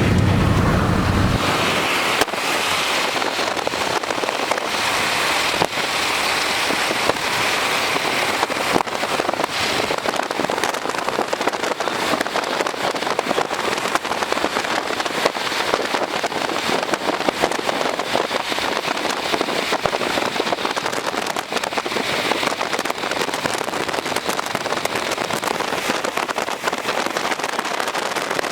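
Rain hitting a car, a dense, steady crackle of drops striking the body and windows.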